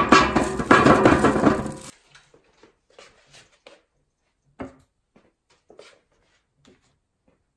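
Potatoes tumbling out of a crinkling plastic bag into a metal storage canister, cut off abruptly about two seconds in. Then a few soft knocks as plastic plant pots are set down on a ceramic tray.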